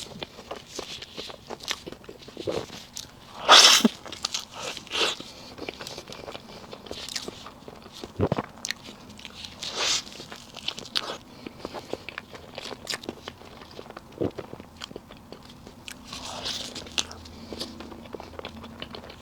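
Close-miked eating of a soft layered cake: irregular bites and wet chewing clicks, loudest about three and a half seconds in.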